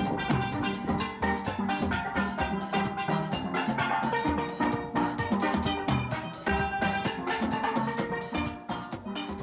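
Steel band playing: a quick run of struck steel-pan notes over a drum kit, fading out near the end.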